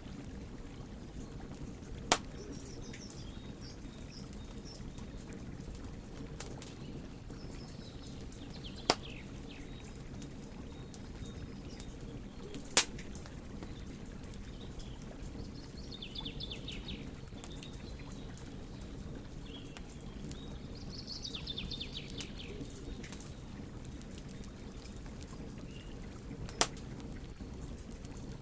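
Wood fire burning with a steady low rush of flame and four loud, sharp crackling pops spread through it. Fainter high chirping trills come and go between the pops.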